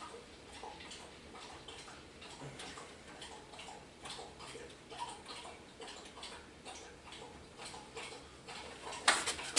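Faint, irregular small metallic clicks and ticks as a brake-line fitting is handled and tried by hand in a brass T fitting, with a louder clack near the end.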